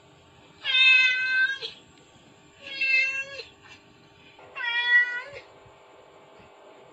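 Mother cat's calling meow, a sound effect played from a phone: three meows about a second long, repeated every two seconds or so.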